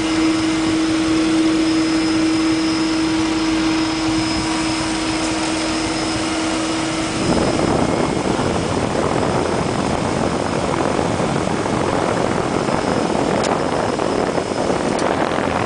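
DHC-6 Twin Otter's twin Pratt & Whitney PT6A turboprops running at taxi power, heard from inside the cockpit. A steady hum in the engine noise drops out about seven seconds in, and the sound turns rougher while staying about as loud.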